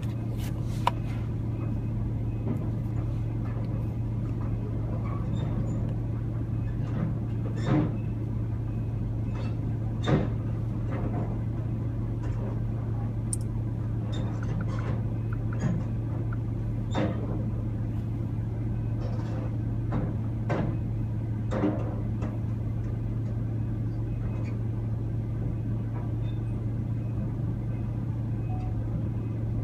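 Engine running with a steady low drone, with scattered short knocks and clunks every few seconds.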